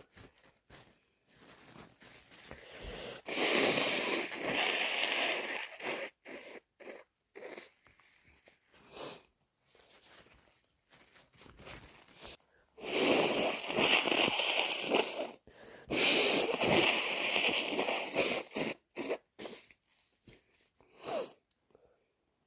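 A person congested with a heavy cold blowing their nose hard three times, each blow lasting two to three seconds, with short, quieter sniffs between.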